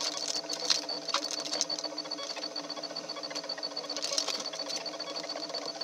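A small machine runs steadily with a fast, even ticking of about eight ticks a second. Over it, a plastic squeegee rubs and scrapes a few times across a PEI sheet as it is pressed down.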